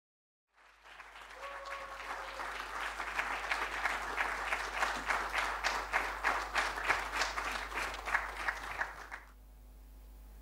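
Audience applauding: the clapping swells in over the first couple of seconds, holds dense and even, and stops abruptly about nine seconds in. A short held tone sounds over the clapping about a second and a half in.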